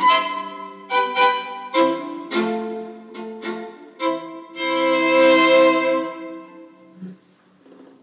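Solo violin playing a phrase of short, separately started notes, then a long held note that fades out about seven seconds in.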